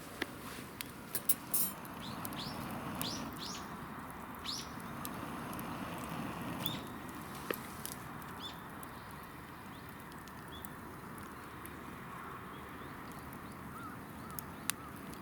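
Campfire crackling, with sharp pops clustered in the first couple of seconds, while small birds chirp: a run of short rising chirps a few seconds in, and a softer string of short repeated notes near the end.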